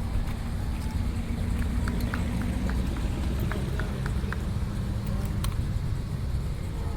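Classic car engine idling with a steady low rumble. A steady hum stops about five and a half seconds in, and there are a few light clicks in the middle.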